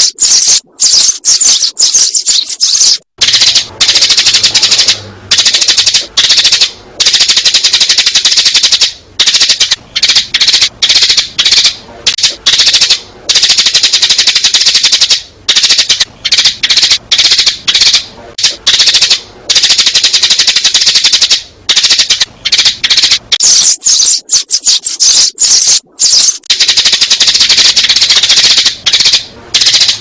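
Sparrows chirping loudly in a dense, rapid, unbroken stream of high chirps with short breaks: a sparrow lure call of the kind played to draw sparrows into a trap.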